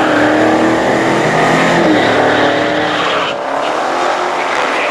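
A modern Dodge Challenger and a classic Chevrolet El Camino accelerating hard side by side down a drag strip, engines at full throttle and climbing in pitch, with a brief dip about three seconds in at a gearshift.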